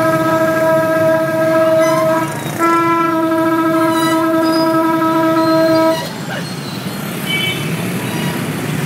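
Ferry's horn sounding two long, steady blasts, the second longer than the first. After the second blast a low engine rumble carries on.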